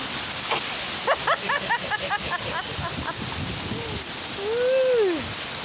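Heavy, wind-driven rain pouring down as a dense, steady hiss. Over it are a quick run of short pitched sounds starting about a second in, and one drawn-out voice sound that rises and falls near the end.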